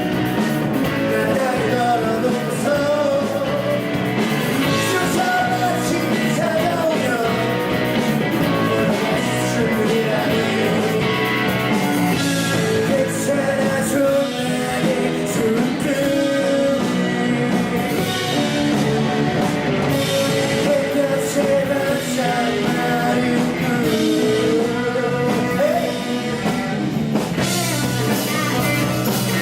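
Rock band playing live with a melody line over guitar and a dense band backing.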